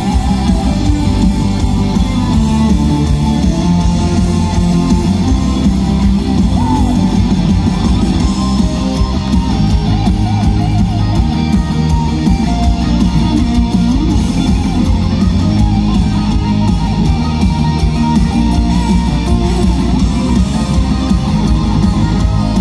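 Heavy metal band playing live through a festival PA: distorted electric guitars over bass, drums and keyboards, loud and continuous, heard from within the crowd.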